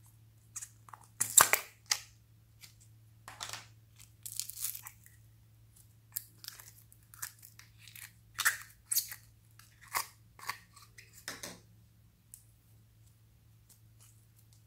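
Small plastic tub of clear jelly slime being opened and the slime worked out of it: a sharp crackle of the plastic tub about a second in, the loudest sound, then a run of sticky crackles and squelches from the slime as it is pulled and handled, stopping about three seconds before the end. A faint steady low hum runs underneath.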